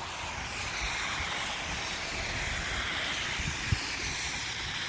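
Steady hiss of vehicle tyres on a wet road, with a low rumble underneath and a single brief knock about three and a half seconds in.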